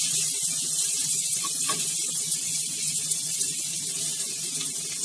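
Chopped onions sizzling in hot oil in a frying pan, a steady hiss.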